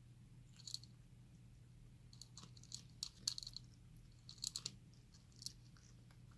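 A cat chewing its food, faint irregular crunching clicks in short clusters, over a steady low hum.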